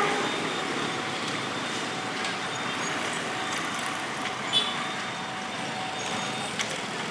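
Road traffic passing, a steady hum of engines and tyres, with one short high blip about four and a half seconds in.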